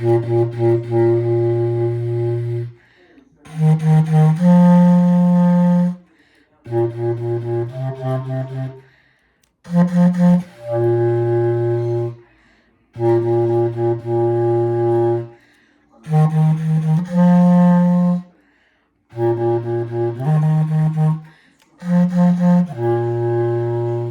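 A low-pitched wind instrument played solo, loudly, working through a concert-band part. Each phrase is a few short tongued notes followed by longer held ones, and there are brief rests of about a second between phrases.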